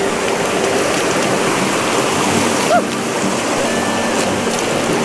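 Shallow rocky river rushing over boulders: a steady, even noise of running water.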